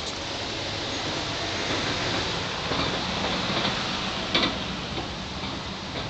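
Hummingbirds' wings buzzing close by, with a few short high chirps, the clearest about four seconds in.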